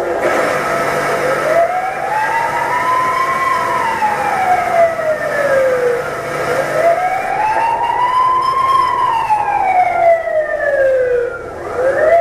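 Electronic sound module in a 1/10-scale RC Defender D90 pickup playing a wailing siren effect through its small speaker: a slow rise and fall about every five seconds, twice, with a third rise starting at the end, over a steady hum.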